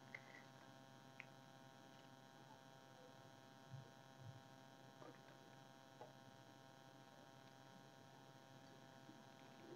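Near silence: a faint steady hum, with a few faint soft ticks scattered through it.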